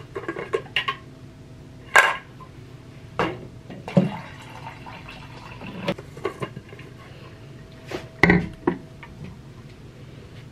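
Knocks and clinks of a studded tumbler being handled, lifted and set down on a countertop. The loudest knock comes about two seconds in and another cluster comes around eight seconds. A faint steady hum runs underneath.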